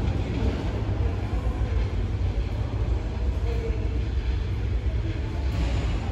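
New York City subway train running through the station, a steady low rumble.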